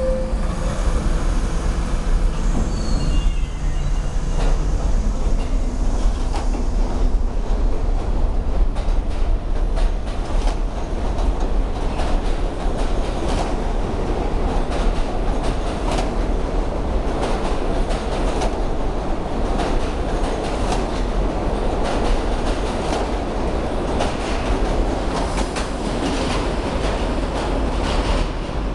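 R68 subway train pulling out of the station and running past along the platform: a steady rumble of motors and wheels, with clicking of wheels over rail joints that grows busier as it picks up speed.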